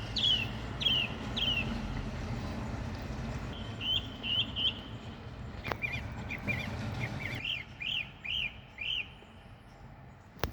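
Songbirds singing after rain: a run of short, falling chirps about twice a second, then other chirping phrases, over a low background rumble that fades about seven seconds in.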